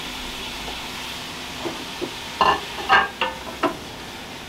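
Onions and carrots sizzling steadily in a Ninja Foodi multi-cooker's pot, being stirred. Near the middle, a few sharp knocks and scrapes against the pot.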